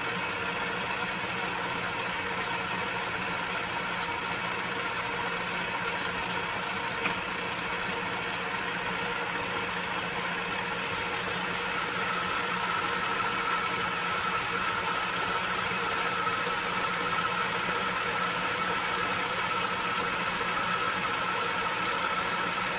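Atlas 618 lathe running steadily, its spindle turning an aluminium bar. About halfway through, a higher steady whine joins and the sound gets a little louder as the tool starts a finish cut, fed along by a motor drive on the lead screw.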